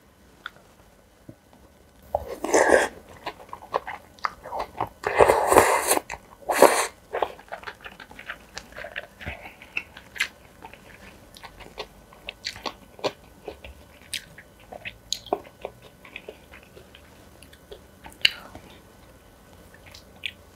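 Close-miked eating of spicy cold noodles: a few loud, noisy mouthfuls about two, five and seven seconds in, then steady chewing with many small wet clicks.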